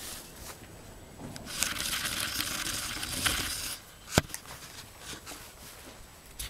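Dry straw and hay rustling and crunching for about two seconds as a goat moves through its bedding and pulls at hay, then a single sharp knock about four seconds in.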